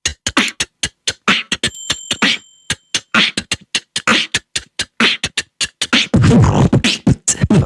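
Vocal beatboxing imitating DJ record scratches: a fast run of mouth clicks, hissing snares and scratch sounds, with a deeper buzzing scratch near the end.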